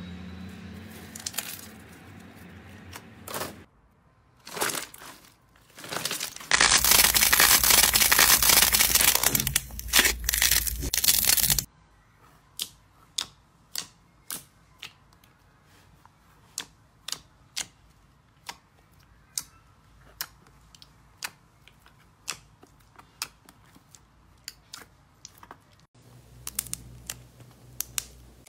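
Slime being handled by hand. It makes soft squishing sounds at first, then a loud dense crackling for about five seconds, then sparse sharp pops and clicks about once a second.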